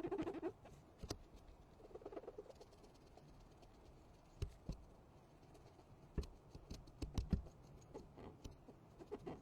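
Irregular small clicks and taps of hand tools and parts being handled during iPhone repair work, with a few louder knocks and a brief squeak near the start.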